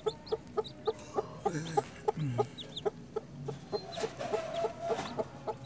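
Broody hen clucking softly in a quick even run, about five clucks a second, with newly hatched chicks peeping in high falling notes. About four seconds in the hen gives a longer, harsher call.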